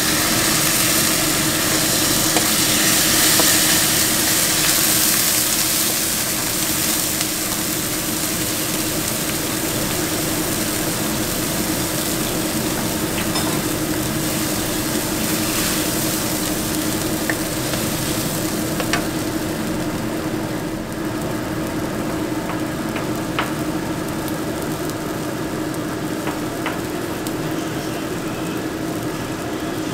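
Vegetables and sauce sizzling in a hot iron wok, loudest in the first few seconds, then easing as liquid is added and comes to a frothy boil. A wooden spatula stirs, with a few light clicks against the wok, over a steady hum.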